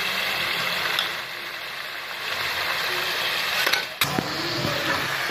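Chicken curry masala frying in a metal pot: a steady sizzling, bubbling hiss as a steel ladle stirs it, with a couple of sharp clicks of the ladle about four seconds in.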